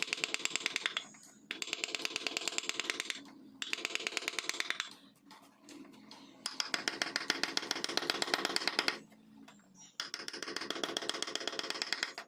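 Rapid, even tapping of carving tools on wood, about fifteen sharp ticks a second, in runs of one to three seconds with short pauses between.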